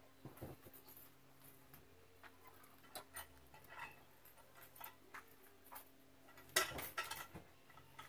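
Faint scattered knocks and clicks of handling work around a sawmill log bed, with a louder clatter about six and a half seconds in.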